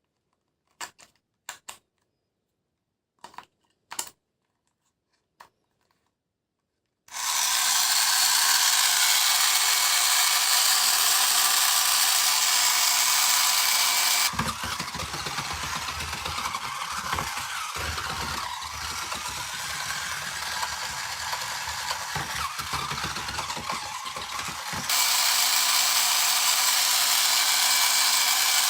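A few light clicks, then about seven seconds in a small electric motor starts and runs with a loud, steady whir. For about ten seconds in the middle its sound changes and gains a lower rumble, then it returns to the first, higher whir.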